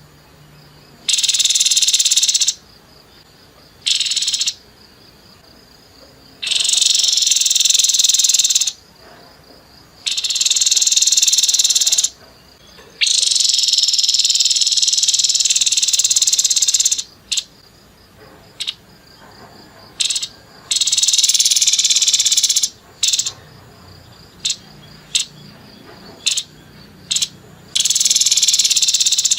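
Grey-headed babbler giving harsh, rough calls in loud bursts of one to four seconds, with a few short sharp notes between them in the second half.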